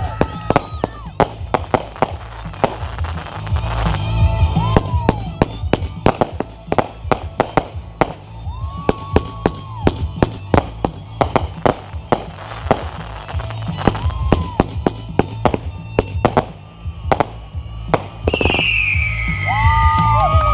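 Fireworks display: a rapid, continuous crackle of pops and bursts, with several short whistles rising and falling. A loud falling whistle comes near the end. Music plays underneath.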